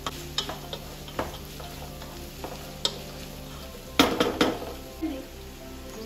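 Wooden spatula stirring and scraping fried rice in a large non-stick pot, with the rice sizzling as it fries. Scattered scrapes throughout, with a cluster of louder knocks against the pot about four seconds in.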